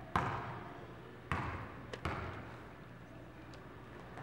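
A basketball bouncing on a gym floor: three sharp bounces within the first two seconds or so, each with a short echo.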